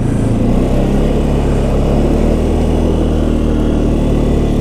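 A vehicle engine running steadily with a low, even hum, heard from on board while under way.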